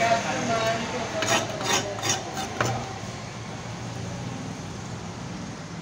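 A long knife cutting shark meat on a wooden chopping block: five or so quick, sharp strokes about a second to three seconds in, over a steady low background hum.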